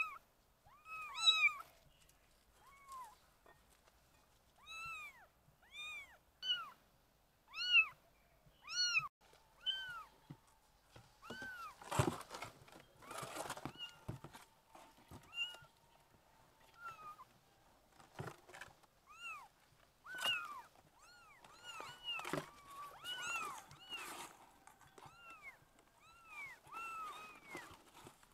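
Young kittens mewing over and over: short, high-pitched mews that rise and fall in pitch, sometimes overlapping from more than one kitten. A few thumps and rustles come around the middle.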